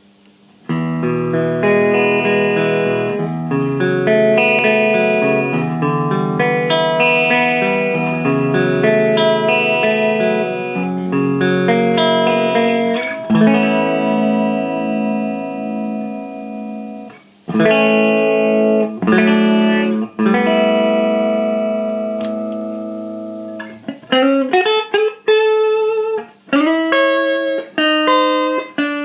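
Gibson ES-335 electric guitar played through a Carlsbro TOP 100 amplifier head and Marshall 4x12 cabinet: long ringing chords for the first half, then strummed chords with short breaks, then quicker single picked notes near the end.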